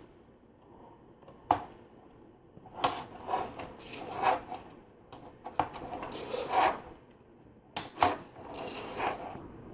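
Plastic LEGO pieces being handled and pressed together: a few sharp plastic clicks, about four, among rubbing and rattling of the parts.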